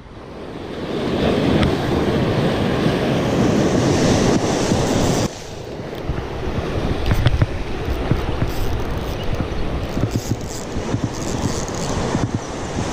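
Surf breaking and washing over shoreline rocks, with wind buffeting the microphone. The sound fades in at the start and drops sharply in level about five seconds in, then goes on choppier.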